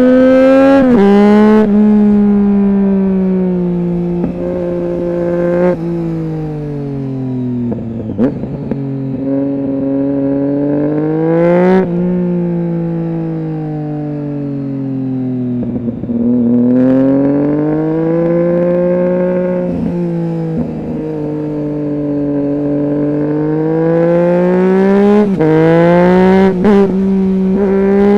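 Triumph Street Triple 675's inline-three engine through a Roadsitalia aftermarket exhaust with one of its two dB killers fitted. The note slowly falls and rises again several times, with a sudden drop in pitch about a second in and another near the end.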